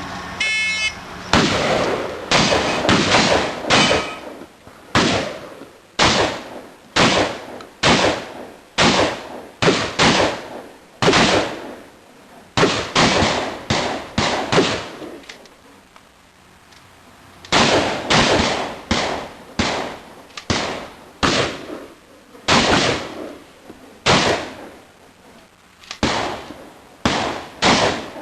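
Shotgun fired over and over in a timed practical-shooting stage: a short electronic start beep, then a long string of loud shots with echoing tails, roughly one to two a second, with a pause of about two seconds past the midpoint.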